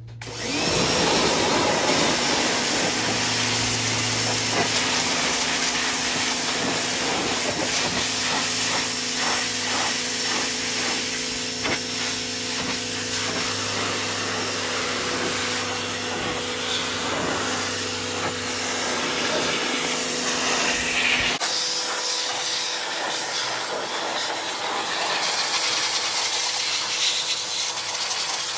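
Pressure washer running and spraying a high-pressure water jet onto a generator's metal fuel tank and engine: a loud, steady hiss over a steady hum. About three quarters through the sound changes abruptly and the low hum drops away.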